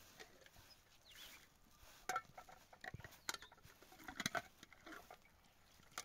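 Scattered sharp clinks and knocks of hard objects being handled, a few with a short ringing tone, the loudest ones about two, three and four seconds in.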